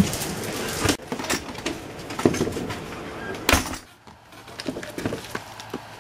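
Footsteps and a door being pulled shut, with the sharpest knock about three and a half seconds in, followed by quieter footsteps outdoors.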